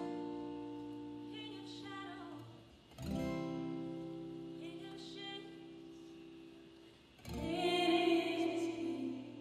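Acoustic guitar played in slow single strummed chords, each left to ring and fade: one rings at the start, a new chord comes in about three seconds in and another about seven seconds in.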